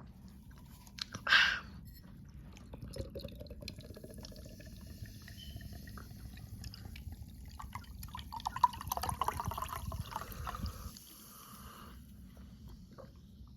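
A bottle or can of Diet Mountain Dew is opened with a short, loud hiss of escaping gas about a second in. Liquid then pours and fizzes under a faint tone that slowly rises, growing louder for a few seconds before it stops.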